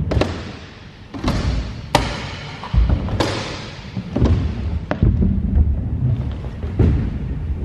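A stunt scooter riding the ramps of a skatepark: a low rumble of the wheels rolling on the ramp surfaces, broken by a series of sharp knocks and heavy thuds from landings and the deck striking the ramps.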